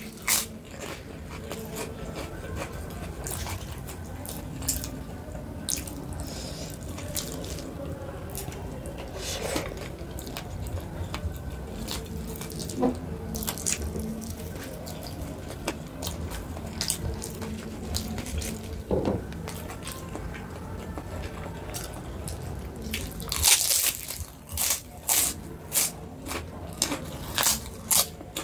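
A person eating close to the microphone, chewing with many sharp mouth clicks. Near the end comes a quick run of loud, crunchy bites.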